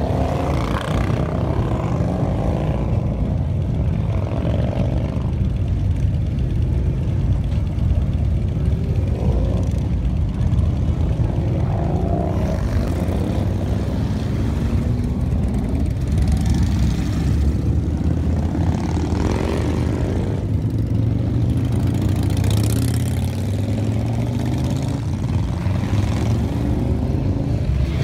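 A procession of big touring motorcycles, Harley-Davidsons among them, riding slowly past in a steady low engine rumble, with one bike after another revving up in rising pulls as they roll off.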